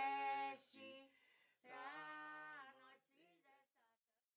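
Unaccompanied singing voice: a held note ends about half a second in, then a quieter, shorter sung phrase follows and trails off.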